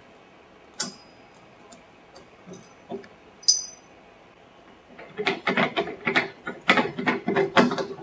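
Chrome shower-valve handle and cover being worked off by hand, metal on metal. First come a few sharp clicks, two of them with a brief high ring. From about five seconds in, a rapid run of scraping, ratchet-like clicks follows as the threaded chrome cover is twisted.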